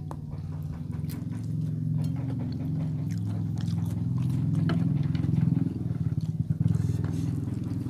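A low, steady engine hum that grows louder through the middle and eases near the end. Close-up eating sounds sit on top of it: chewing, and fingers scraping food on plates.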